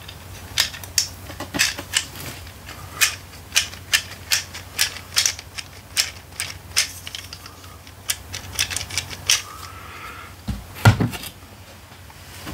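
Plastic Happy Meal action figure's mechanism being worked by hand, giving irregular sharp clicks about two a second, then a louder knock near the end as the toy is set down.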